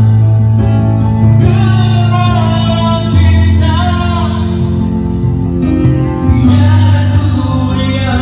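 A live band playing a song with a singer, steady bass notes shifting every second or two under the vocal line.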